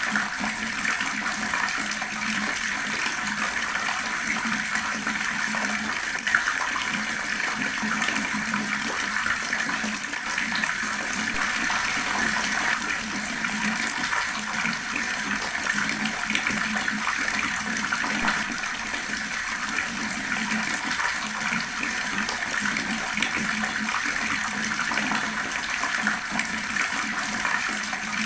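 Water running steadily from a tap, splashing and gurgling, with one brief click about six seconds in.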